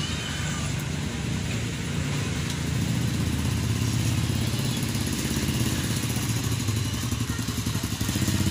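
Small motorcycle engine running at low speed as the bike pulls away and rides closer, a steady low rumble that grows a little louder about three seconds in.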